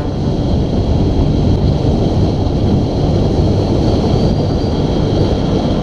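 Wind rushing and buffeting over the microphone of a camera on a fast road-bike descent: a loud, steady, low rumble.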